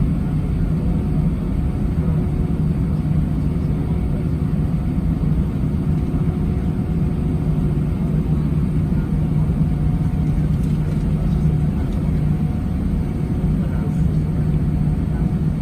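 Cabin noise inside an Airbus A319: a steady, loud rumble of the jet engines and airflow, with a constant low hum.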